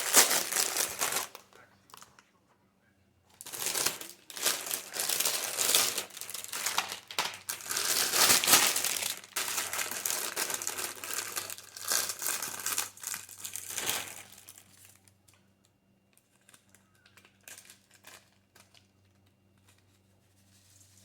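Plastic packaging of a bagged Caesar salad kit crinkling as it is handled, in a short stretch at the start and a longer one from about three seconds in, stopping about fourteen seconds in.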